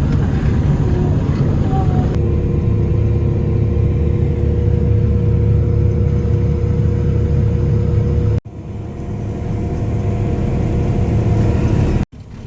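Lexion 585R combine harvester running steadily: a deep engine drone with a steady hum above it. It cuts out suddenly twice, about eight seconds in and again near the end, and each time comes back up.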